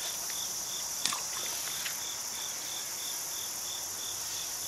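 Insects chirping outdoors: a steady high-pitched buzz with a short chirp repeating evenly about three times a second. A faint click about a second in.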